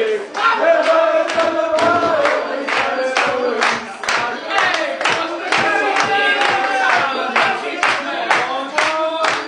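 A group of men singing and shouting along to a song with a steady beat.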